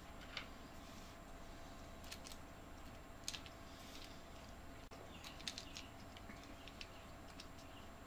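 Faint, scattered light clicks and taps of small extruder parts, a 3D-printed housing and its rollers, being handled and fitted together by hand. The clicks come a few at a time, the sharpest about three and five and a half seconds in, over a faint steady hum.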